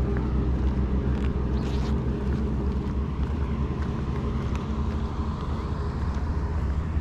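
A steady low hum of a running motor, with a few faint clicks.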